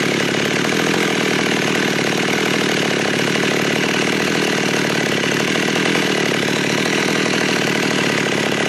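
ZiD Taiga-214 two-stroke chainsaw idling steadily on the ground with no one at the throttle.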